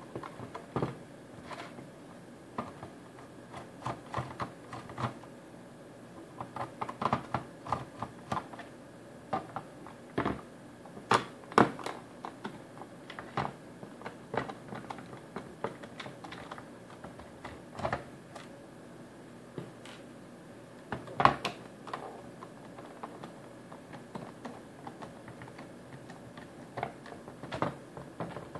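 A hand screwdriver working screws out of the plastic base of a Linksys SPA942 VoIP phone: irregular small clicks and taps, sometimes several a second, with two louder knocks a little before halfway and about three quarters through.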